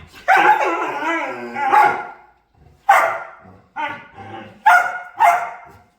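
Pet dog vocalizing: one long call wavering in pitch, then four shorter calls.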